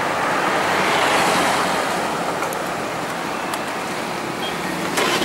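Road traffic passing: a steady rush of tyre and road noise that swells about a second in and slowly fades, with another vehicle coming up near the end.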